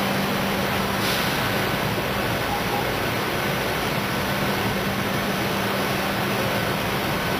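Steady hiss with a low hum from a running selective soldering machine; the hiss turns a little brighter about a second in.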